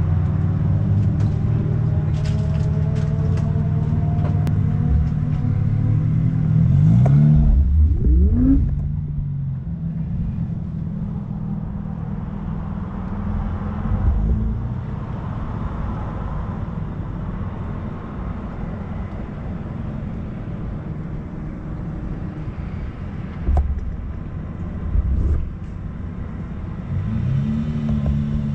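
Car engine running at low revs, a steady low hum; about a quarter of the way in its pitch rises and falls as it revs, with another brief change in pitch near the end.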